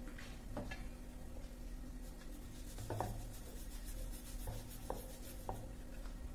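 Wooden rolling pin rolling out a floured chapati dough ball on a round wooden board: soft rubbing strokes with a few light wooden knocks.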